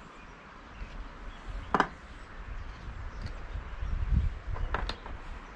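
Clicks and knocks of small chainsaw parts being handled and set down on a wooden pallet: one sharp click about two seconds in and two more near the end, over a low rumble.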